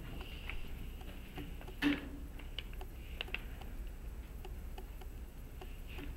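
Scattered small clicks and taps, with one louder knock about two seconds in, over a low steady room hum: a speaker handling papers and a pen at a lectern.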